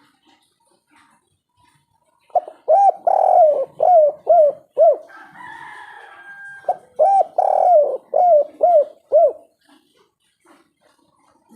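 Spotted dove (tekukur) cooing its three-part 'kuk 3' song. It gives two phrases of about six repeated low coos each, with a fainter, noisier sound between the two phrases.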